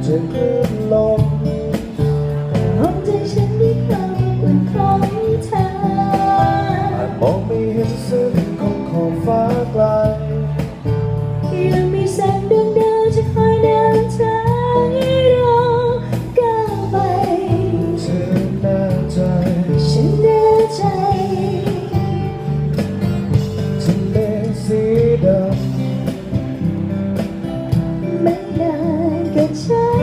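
Live band playing a Thai song: a woman singing into a microphone over acoustic guitar, electric bass and keyboard.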